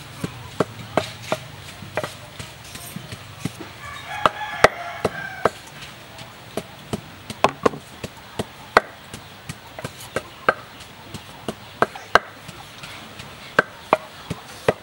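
A cleaver cutting pieces off a firm green unripe banana held in the hand: a string of sharp, irregular clicks, about two to three a second.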